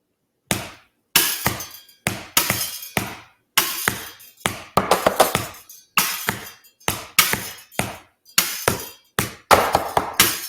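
A rhythmic found-sound pattern played on household objects: a wire whisk, a box of tissues, a hairbrush and a small book, struck, tapped and scraped in a steady beat of short sharp hits with scratchy tails.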